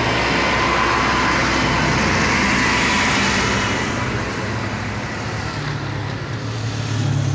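Tractor engine running, a loud steady mechanical noise: a rushing sound swells over the first few seconds and eases off about halfway, while a low engine drone grows stronger near the end.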